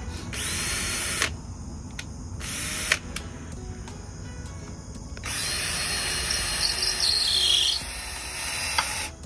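Power drill running in three bursts, a short one near the start, a brief one, then a longer run of about four seconds, its motor whining steadily. It is boring pilot holes in the roof framing timber so the screws don't crack the wood.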